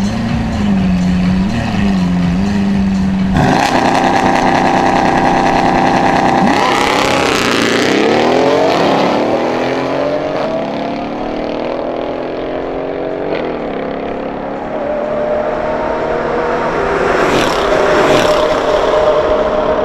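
Mercedes-Benz CLS 63 AMG biturbo V8 and Lamborghini Aventador V12 in a standing-start drag race. The engines are held at the line with small throttle blips, then launch together at full throttle about three seconds in. The note rises through the gears, falls in pitch as the cars pass, then is heard again at high revs further down the strip.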